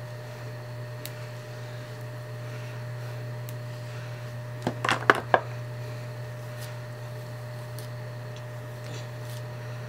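A steady low electrical hum with a quick cluster of sharp clicks about five seconds in, from hands handling hair and hair products.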